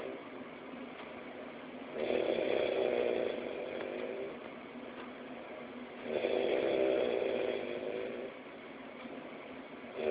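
A sleeping man snoring in a steady rhythm: two long snores about four seconds apart, each lasting around two seconds, with quieter breathing between them.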